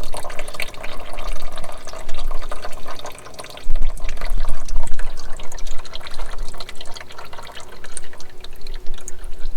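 Old gear oil pouring out of the drain hole of a 2005 Iveco Daily's 5-speed manual gearbox into a catch container, a steady splashing trickle that dips briefly about three seconds in. The oil comes out discoloured and laden with metal, a sign of internal gearbox wear.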